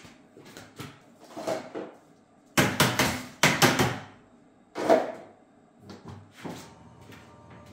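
Plastic scoop knocking and scraping against the plastic grate of a Petsroom automatic litter box, in several short bursts, the loudest clustered around the middle.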